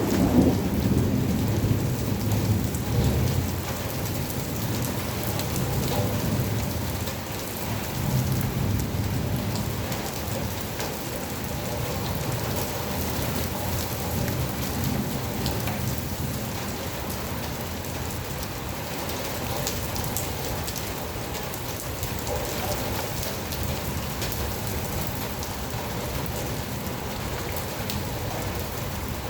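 Steady rain falling, with louder low rumbling in the first few seconds.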